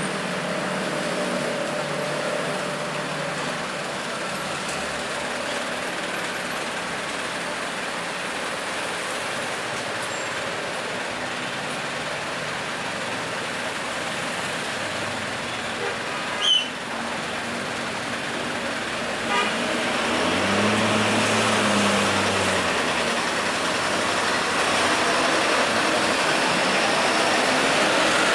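Road traffic noise: a steady wash of passing vehicles that grows louder in the last third. There is one short sharp sound a little past halfway, and a low held tone from a vehicle lasting about two seconds, around two-thirds of the way in.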